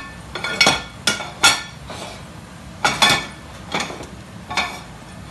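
A series of about eight sharp clinks and clatters of china plates and metal cookware knocked on a range cooker's hob, several in quick succession in the first second and a half, then a few more spaced out.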